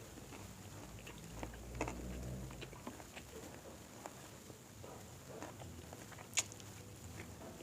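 Close-up chewing and crunching of crispy fried chicken, with small irregular crackles and clicks and one sharper click about six seconds in.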